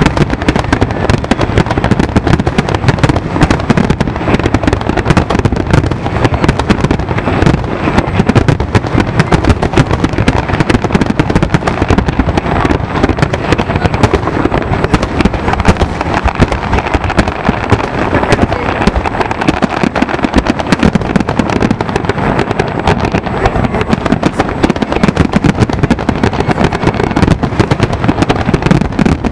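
Fireworks display at full intensity: aerial shells and fountains bursting and crackling in a dense, unbroken barrage, many bangs overlapping with no pause.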